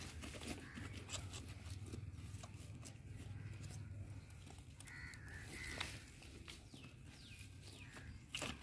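Faint rustling and scattered light clicks of a nylon cast net being handled and shifted over grass and rock, over a low steady outdoor rumble.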